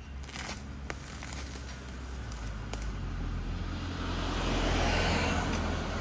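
A road vehicle passing by: a low engine hum under a rushing sound that swells to its loudest about five seconds in, then fades.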